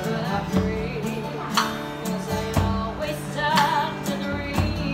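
Live band music: acoustic guitar and conga drums with a woman singing, the drums striking about once a second.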